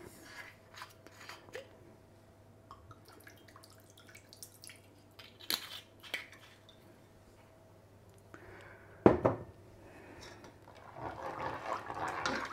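Quiet kitchen handling at the stove: small clicks and taps over a faint steady hum, one sharp knock about nine seconds in, then a spatula stirring and scraping through thick tomato sauce in a stainless steel pot near the end.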